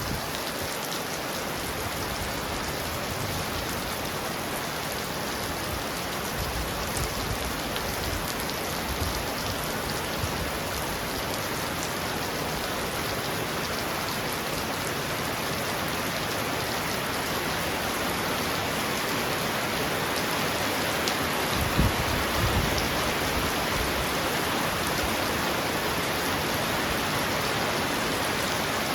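Heavy rain pounding on a roof: a steady, dense hiss of drops throughout. A brief low rumble rises out of it about three quarters of the way through.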